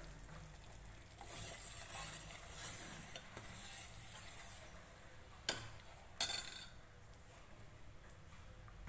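Steel ladle stirring hot sugar syrup in a steel pan, scraping softly, with two sharp clinks of metal on metal a little past halfway.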